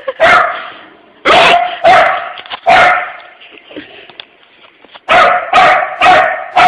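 A puppy barking in loud, sharp barks, about eight of them, with a quieter gap of around two seconds in the middle. This is alarm barking at an unfamiliar object he is afraid of.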